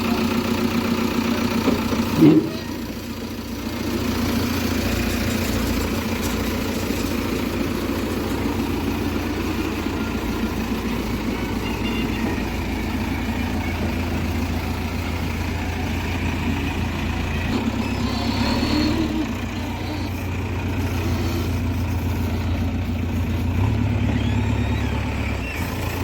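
JCB 3DX backhoe loader's diesel engine running steadily. A short, loud knock comes about two seconds in, followed by a brief dip in the engine sound, and the engine note shifts again later on.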